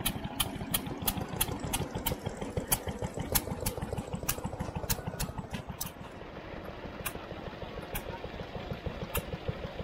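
Vintage single-cylinder stationary engines running, a dense low chugging with sharp regular clicks, about three a second at first, slowing to about one a second after about six seconds.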